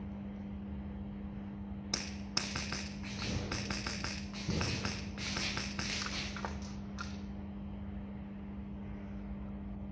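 Airsoft guns firing: a run of sharp, rapid clicks and pops that starts about two seconds in and stops about seven seconds in.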